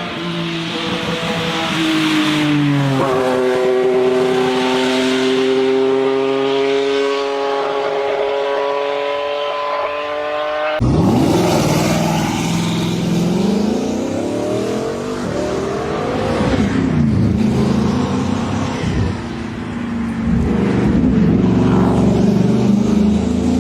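High-powered car engine accelerating hard, its pitch climbing steadily for about ten seconds. After a sudden cut, the engine revs up and down again and again.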